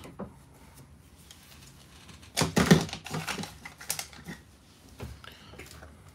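A rapid clatter of sharp clicks and knocks, loudest between about two and a half and four seconds in, followed by a few lighter ticks.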